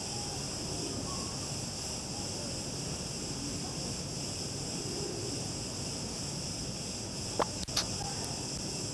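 Steady high-pitched chorus of insects, with two sharp clicks about half a second apart near the end.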